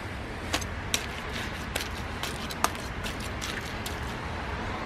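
Small hand trowel digging and scraping in damp compost and soil, with a scatter of short clicks and knocks against the plastic planter and bucket, over a steady low background rumble.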